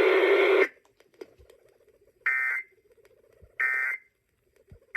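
Emergency Alert System end-of-message data bursts heard over a radio: short, harsh, identical digital screeches about a second and a half apart, two in full and a third starting right at the end. They mark the end of the alert.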